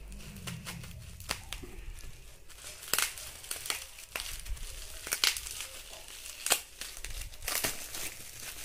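Plastic packaging and bubble wrap crinkling and rustling as packed items are handled, with irregular sharp crackles, a few of them louder.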